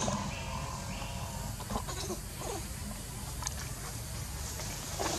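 Macaque monkeys calling: a short squeal right at the start and a few brief cries about two seconds in, over a steady low background noise.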